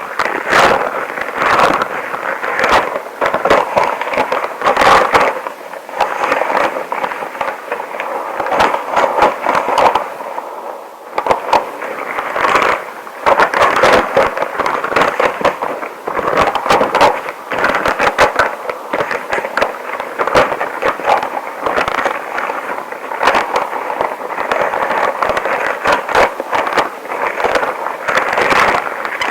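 Extra-long rubber gloves rubbed close to the microphone, a dense run of crinkles and small sharp clicks with a short lull about eleven seconds in.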